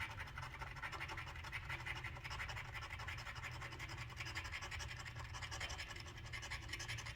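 Scratch-off lottery ticket being scratched, a faint, continuous run of rapid rasping strokes as the latex coating comes off the winning-numbers area.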